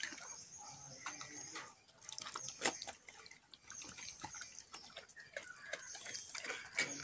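Mother dog licking and chewing the birth sac off a newborn puppy: irregular wet smacking and clicking from her mouth.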